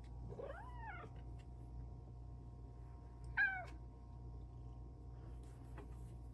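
Silver Bengal cat meowing twice: a first meow about half a second in that rises and falls in pitch, then a shorter, louder meow about three and a half seconds in.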